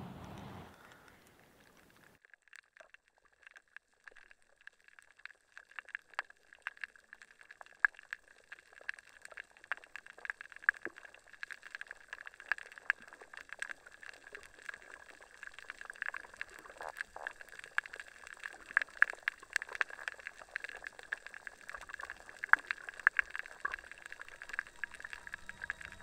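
Ambient sound-design texture: sparse crackling and popping clicks that start about two seconds in and grow denser, over a steady thin high tone.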